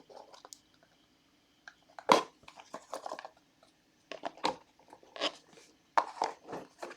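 Trading-card box packaging being opened and handled: irregular crinkles, rustles and taps of cardboard and plastic wrap, in short bursts a second or so apart.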